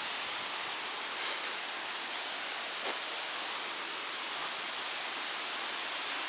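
Strong wind rustling through tree leaves: a steady, even hiss, with a faint click about three seconds in.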